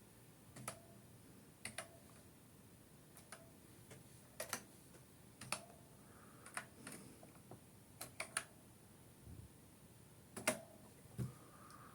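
Faint, sharp clicks at irregular intervals, about one a second, some in quick pairs.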